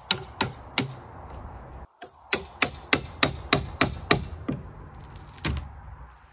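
Hammering: a run of sharp strikes, a few at first and then about three a second, as the outer fiberglass skin of a rotted boat transom is knocked loose. A faint low hum runs underneath.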